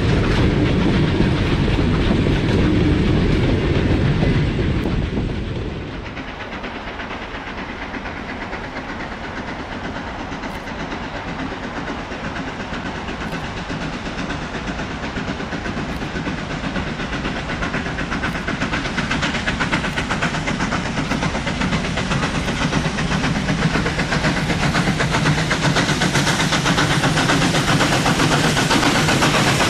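Train rolling along rails, a steady rushing rumble that drops in level about six seconds in and then slowly builds again.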